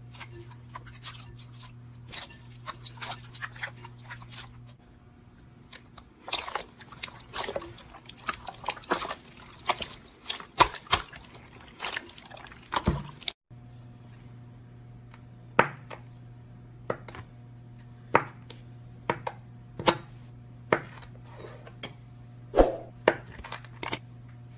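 Slime being pressed and handled by hand, giving irregular wet, sticky crackles and sharp pops over a steady low hum. The sound drops out briefly about halfway through.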